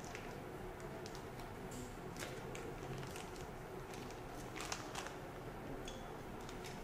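Faint handling sounds: a clear plastic zip bag crinkling and small plastic socket parts giving a few light clicks as they are picked up and set down on a rubber mat, over a low steady hum.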